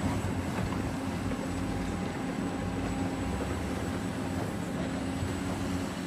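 Caterpillar 365C hydraulic excavator's diesel engine running steadily as the machine digs.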